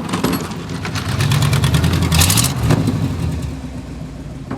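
Snow-plough truck engine revving, rising in pitch over about a second, with a brief hiss about two seconds in, then easing off and fading. The truck has a habit of backfiring.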